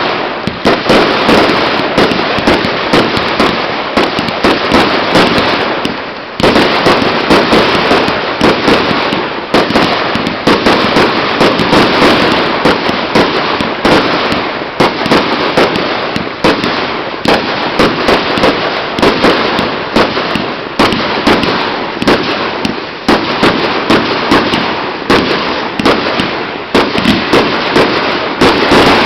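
Fireworks going off in rapid succession: a loud, dense barrage of bangs and crackling, several reports a second, with a brief dip about six seconds in.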